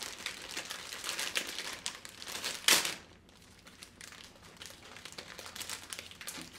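Clear plastic cookie bag with a cardboard header crinkling as it is pulled open by hand. There is one short, loud rip nearly three seconds in, then quieter crinkling.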